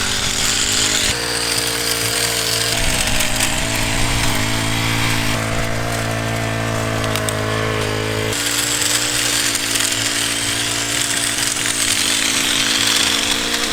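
Hedge trimmer's small engine running steadily, its pitch stepping a couple of times.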